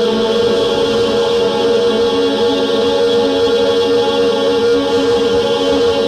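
Ambient drone music from Buchla and Eurorack modular synthesizers: a dense chord of many steady tones held without a break, with a lower tone joining in a few seconds in.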